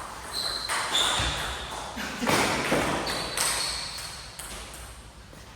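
Table tennis ball hits: a few sharp knocks, some with a short high ringing ping, spread over the first few seconds.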